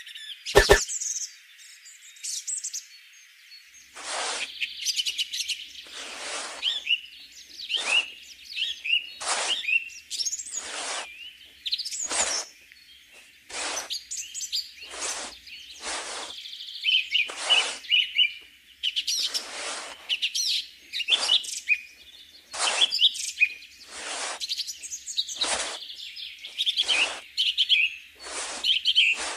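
Birds chirping and singing throughout, with a brief scrape of a small trowel scooping sand about every one to two seconds. A single sharp click comes right at the start.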